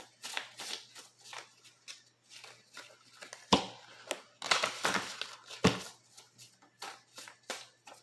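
A deck of tarot cards being shuffled by hand: a run of quick, uneven flicks and rustles, with two louder slaps about three and a half and five and a half seconds in.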